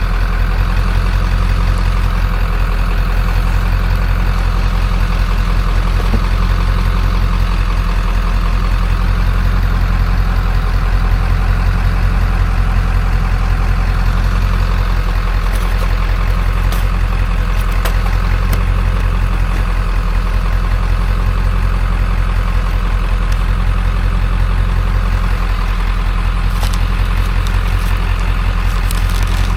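Vehicle engine running steadily: a continuous low drone.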